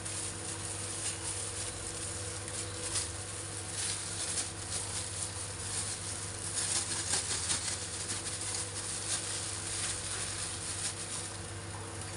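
Seasoned water at a rolling boil in a wok: a steady bubbling hiss dense with small pops and crackles. A low steady hum runs underneath.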